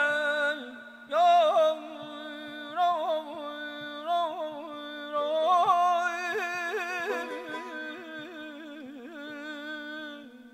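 Balaban, the Azerbaijani double-reed wooden pipe, playing an ornamented mugham melody with quick turns and trills over a steady held drone note. The phrase answers the singer's line and grows quieter near the end.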